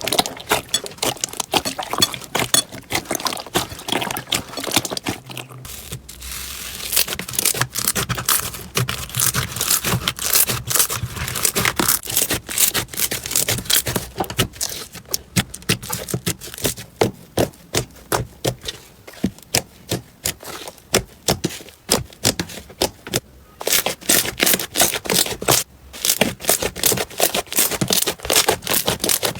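Slime being squished and pressed by hand, giving a dense run of crackling clicks and pops. The texture changes abruptly about five seconds in and again about three-quarters of the way through.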